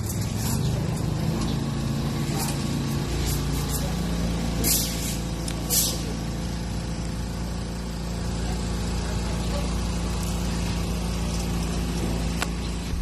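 Air compressor running with a steady motor hum that settles to an even pitch about four seconds in, and two short bursts of air hiss about five and six seconds in.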